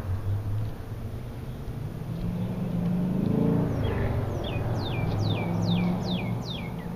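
A motor vehicle's engine hum swelling as it passes, while a bird sings a run of about six quick descending whistles in the second half.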